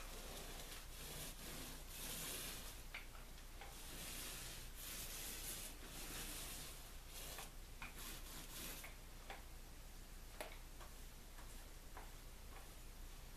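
Faint, irregular swishing strokes of a paint applicator spreading a second coat of primer over a canvas-covered canoe hull, with light ticks and clicks scattered among them.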